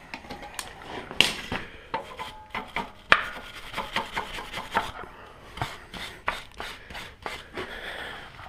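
Irregular knocks, taps and scraping of things being handled, with two sharper knocks about a second and three seconds in.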